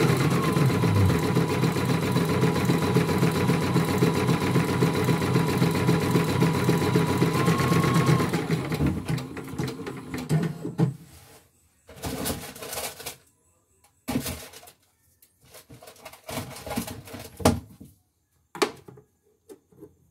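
Portable computerized embroidery machine stitching rapidly with a steady motor whine, its needle bar hammering at an even fast rhythm as it sews lettering. About eight seconds in it slows and stops, followed by a few scattered clicks and knocks.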